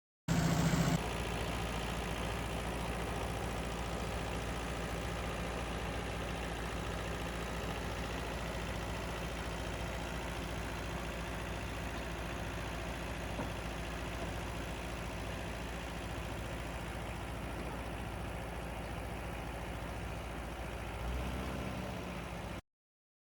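Engine of a sweet potato harvesting machine running steadily. It is louder for about the first second, with a small rise near the end before it cuts off suddenly.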